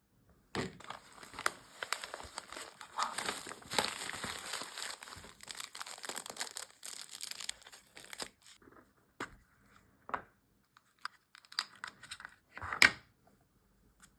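Packaging being opened: paper or plastic crinkling and tearing for several seconds, then scattered light clicks and taps, with one sharper click near the end.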